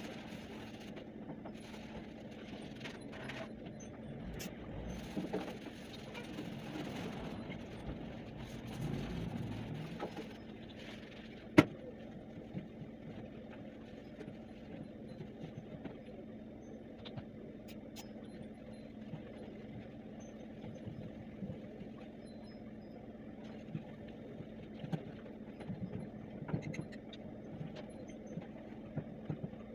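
Cleaning a microwave oven: handling and wiping sounds over a steady low hum. One sharp click comes about twelve seconds in, with lighter clicks and knocks later.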